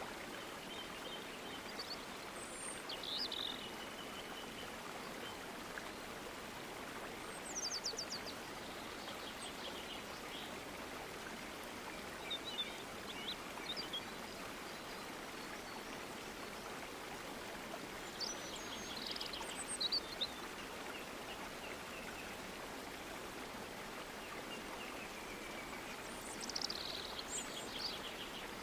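Steady rush of falling water from a waterfall, with birds calling over it in short bursts of high chirps and quick trills every few seconds.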